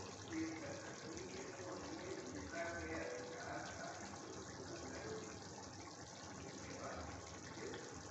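Chicken curry gravy boiling in a kadhai, a steady bubbling.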